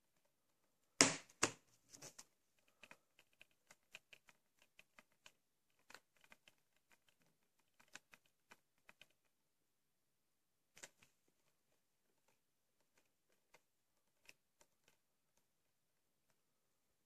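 Handling of a Blu-ray steelbook case and its packaging: two sharp clacks about a second in, then a string of light clicks and taps for several seconds that thins out to a few ticks.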